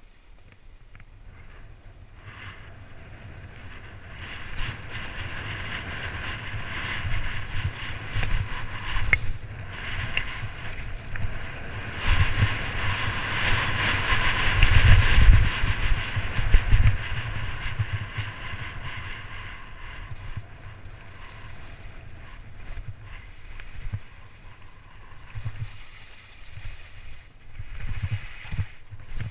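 Nordica Helldorado skis hissing and chattering over suncupped glacier snow at speed, with wind rumbling across the helmet camera's microphone. The noise builds over the first few seconds, is loudest around the middle, then eases.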